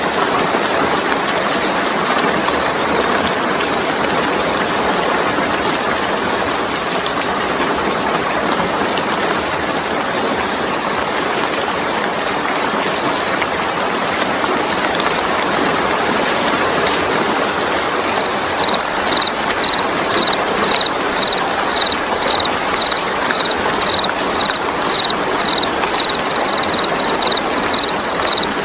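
Steady hiss of falling rain. About two-thirds of the way in, a high chirp joins it, repeating about twice a second and quickening a little near the end.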